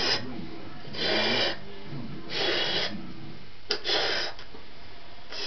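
A yellow agate (marbled latex) balloon being blown up by mouth: rushes of breath about every second and a half, with a short sharp click just before one of them.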